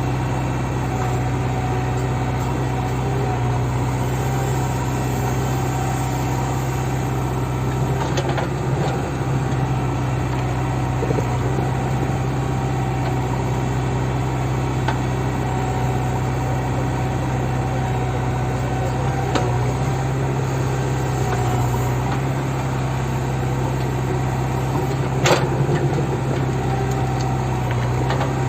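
JCB backhoe loader's diesel engine running steadily at a constant pitch, with a few short knocks from the machine's work, the sharpest near the end.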